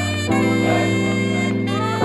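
Background music: an instrumental stretch of a song, held chords that change about a quarter of a second in.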